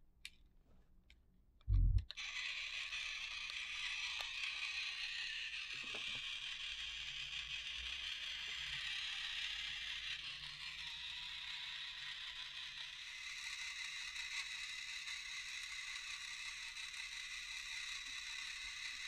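A loud low thump about two seconds in, then the TOMY FlipBot's small battery motor and worm-drive plastic gear train whirring steadily, now running with its cracked gears repaired. The whirr turns a little brighter about halfway through.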